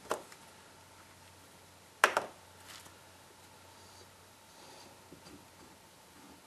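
Homemade lead hardness tester being handled as a cast bullet is set in it and snugged up: one sharp click about two seconds in, then a few faint small clicks and rustles.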